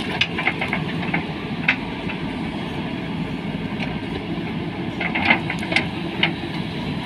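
Two JCB 3DX backhoe loaders' diesel engines running under load as their backhoe buckets dig out a tree stump, with scattered knocks and scrapes from the buckets working the soil and roots, most of them between about five and six and a half seconds in.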